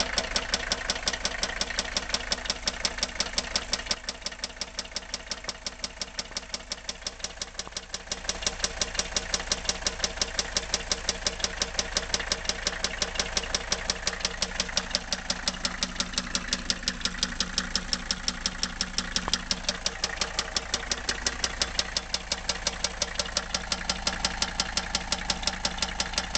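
Mercedes OM617.952 five-cylinder turbo diesel idling warm with a fast, even, loud rod knock on every turn. The rod bearings' hard surface is worn away. It eases slightly a few seconds in, then comes back.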